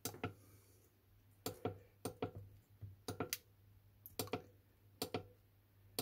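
Push button under a solar inverter's display screen pressed about six times, each press a sharp pair of clicks, over a steady low hum.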